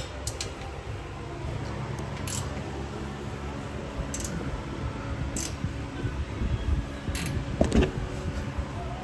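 Workshop sounds: a few sharp metallic clicks and clinks of handled tools or parts over a steady low hum, with a heavier knock about eight seconds in.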